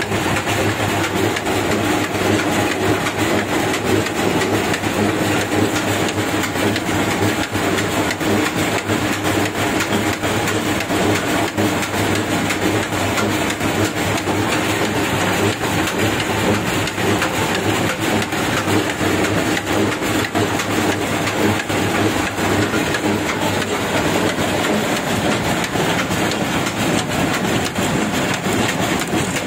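Screw-type oil expeller running steadily under load: a constant mechanical drone with a dense, rapid clatter as the screw presses oilseed.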